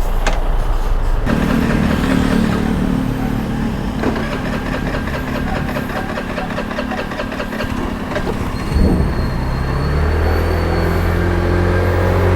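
Benelli Panarea 125 scooter's single-cylinder engine catching about a second in after a kick-start and running, with a lower, heavier note near the end. The bike was hard to start and its check-engine light is on, which the owner puts down to the wash.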